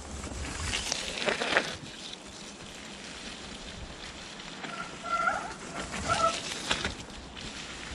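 Mountain bike tyres rolling over the leaf-littered, muddy trail, with crackling rustles as riders pass. About five to six seconds in come a few short, high chirping squeaks.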